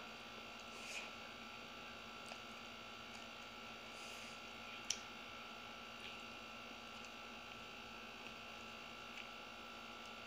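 Faint steady electrical hum, with quiet chewing and a few soft clicks, one sharper about five seconds in.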